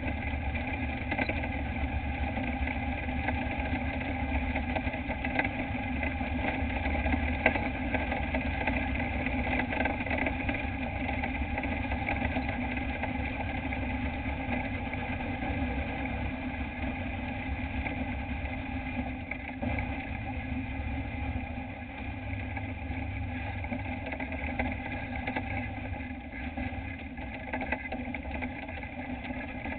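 Dirt-track race truck's engine running at a low, steady speed, heard from inside the cab, with a deep pulsing note.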